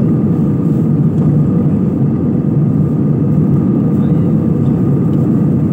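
Cabin noise of an Airbus A320-family jet airliner in cruise: the engines and the air rushing past the fuselage make a loud, even, low rumble, with a faint steady hum above it.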